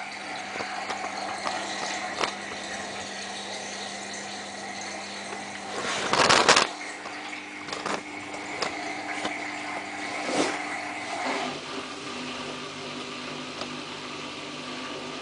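Samsung WF8804RPA front-loading washing machine running after spin was selected in service mode, as it begins its spin cycle: a steady mechanical hum with a high whine and a few clicks. A loud noisy rush comes about six seconds in, and near the end the hum changes pitch.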